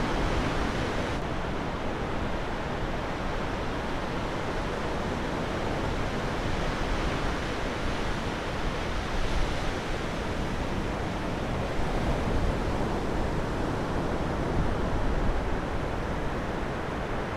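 Steady wash of surf breaking on a sandy beach, with wind rumbling on the microphone.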